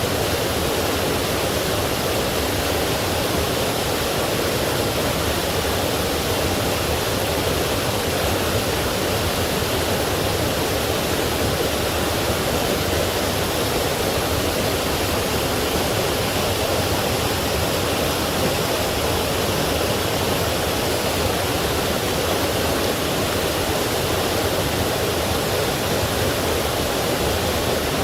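Forest stream flowing: a steady, unbroken rush of water.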